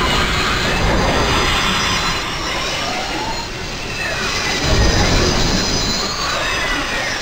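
Harsh, dense noise with shrill screeching tones that glide up and down over a low rumble, as a glitch-and-static sound effect; the rumble swells about five seconds in.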